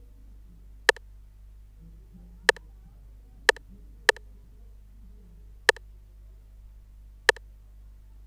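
Sampled rimshot from a reggae drum kit playing a sparse, syncopated pattern on its own: six sharp, short hits, unevenly spaced, over a faint low hum.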